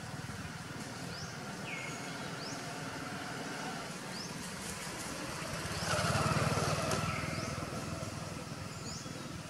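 Outdoor background of a steady low engine hum with a bird repeating a short, quickly sweeping call about once a second; a louder noise swells up about six seconds in and fades a second later.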